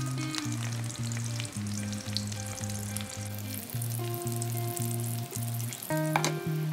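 Eggplant strips sizzling and crackling in hot oil in a non-stick wok, under background music. About six seconds in, a sharp clatter as a glass lid is set on the wok.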